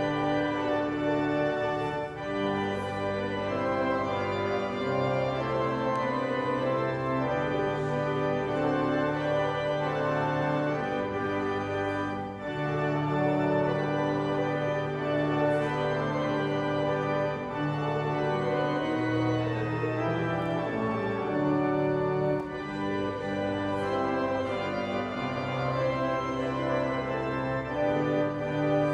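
Church organ playing a slow hymn in sustained chords, the bass notes and harmony changing every second or two.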